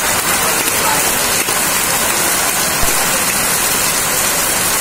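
Heavy rain falling steadily, a dense even hiss, with a single soft thump about three seconds in.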